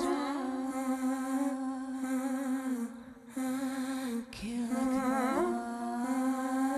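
A woman humming wordless, long held notes into a microphone, her pitch wavering slightly. About three seconds in the note drops away briefly, then comes back with an upward slide.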